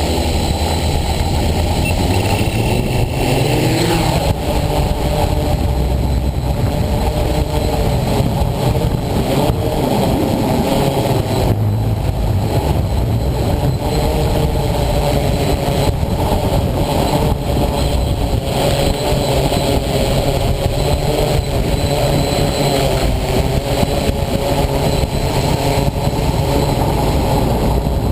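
Mikrokopter Hexa XL hexacopter's six electric motors and propellers whirring steadily, their several pitches wavering up and down as the motor speeds change, over a low rumble of heavy wind.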